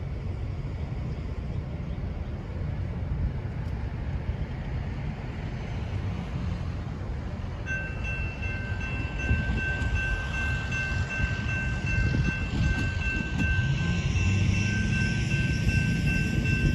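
Low rumble of an EMD GP38-2 diesel locomotive. About eight seconds in a bell starts ringing steadily and keeps on as the rumble grows a little louder.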